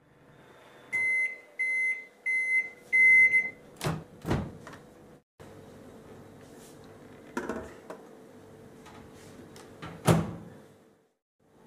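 Samsung convection microwave oven: four short high electronic beeps, then the door clicks open and the oven hums steadily. A cake tin knocks as it is set inside, and the door shuts with a loud thump about ten seconds in.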